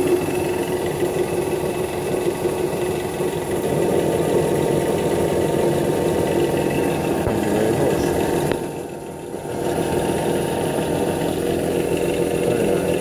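A 1/4 hp bench drill press running steadily as it spins a Thermodyne Ultra Core 24 permanent-magnet alternator on its spindle. The sound drops briefly about two-thirds of the way through, then comes back.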